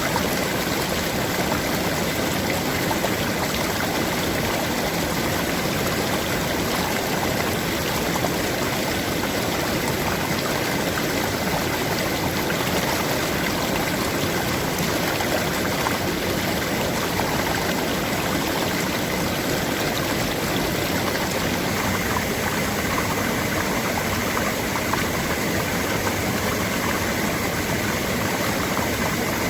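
A stream of water flowing, a steady, even rush that does not change.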